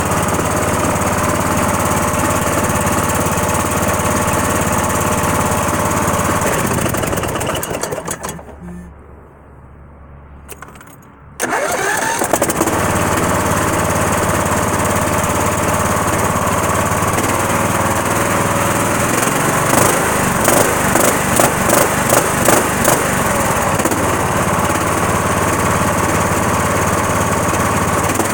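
A motor that its owner calls bad, running steadily, then winding down about seven seconds in and going quiet. It comes back suddenly about eleven seconds in and runs on, with a stretch of uneven pulsing about twenty seconds in.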